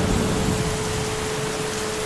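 Heavy rain falling steadily, with a low thunder rumble fading away in the first second and a steady hum underneath.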